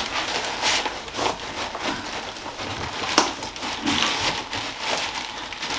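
Rustling and crinkling of packing chips and plastic wrapping as hands dig through a cardboard box, with one sharp click about three seconds in.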